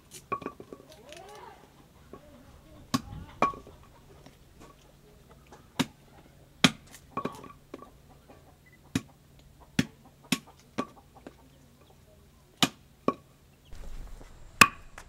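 Wooden club striking babassu nuts held on an upturned axe blade, hand-cracking them: sharp separate knocks every second or two, often in pairs about half a second apart.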